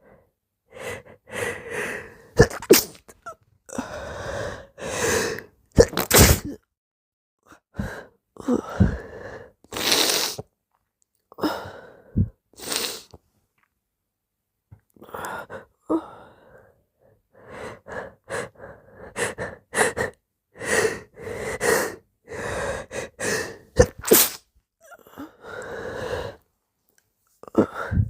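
A person's repeated wet sneezes, one after another, with moaning and whining breaths between them. There is a pause of a couple of seconds about halfway through before the sneezing starts again.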